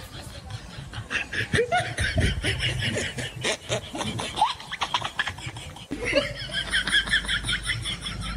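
Laughter in rapid chuckling bursts, in two spells with a brief break about six seconds in.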